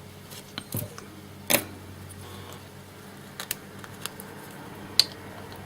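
Scattered sharp clicks and short scrapes of a hand tool cutting the copper tracks on stripboard between the IC pins, two of them loudest (about a second and a half in and near the end), over a steady low hum.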